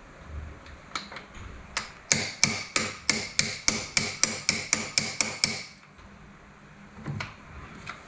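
Hammer striking a battery terminal clamp to force it down onto the battery post: a few taps, then a quick even run of about a dozen metallic strikes, roughly three a second, each with a short ring, and one last knock near the end.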